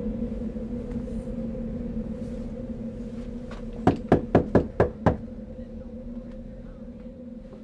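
Knuckles rapping on a panelled door: six quick knocks in a little over a second.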